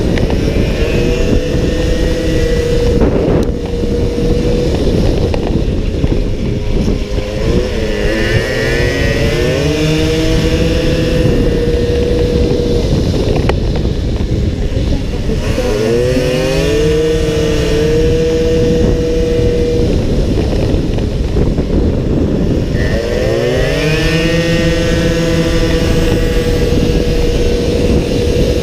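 Racing scooter engine at high revs, its steady note dipping and climbing back about four times, with wind rushing over the onboard microphone.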